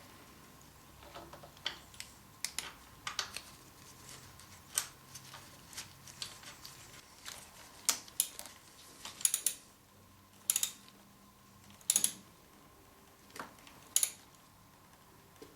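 Irregular sharp metallic clicks and clinks, about fifteen over the stretch and loudest in the second half, from hand tools and small parts during work on a motorcycle's brake line fittings.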